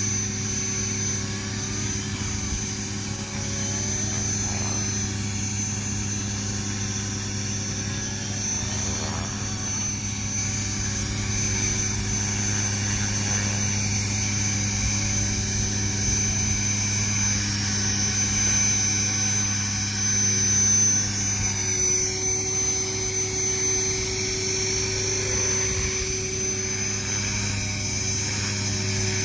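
Radio-controlled model helicopter hovering: a steady drone of rotor blades and motor with a high whine, its pitch stepping up slightly a little past two-thirds of the way through.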